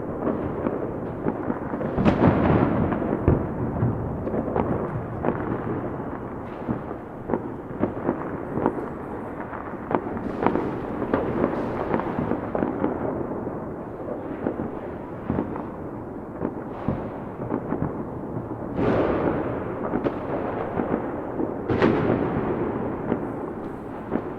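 Fireworks going off continuously: a dense crackle of many small pops over a low rumble, with several louder bangs, the biggest about two seconds in, near the middle, and twice near the end.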